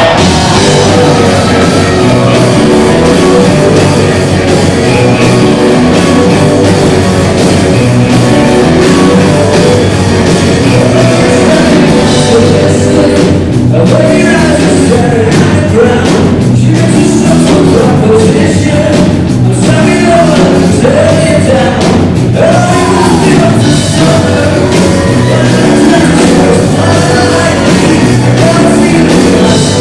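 Rock band playing live, loud: electric guitars, bass and drum kit, with a male lead vocal singing over them.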